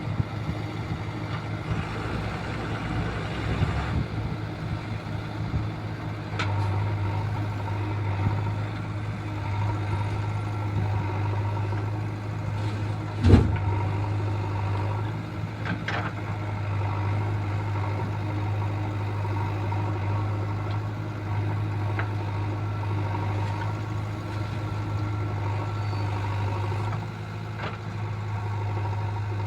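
Heavy vehicle engine idling steadily, with a few clicks and one sharp, loud knock about halfway through.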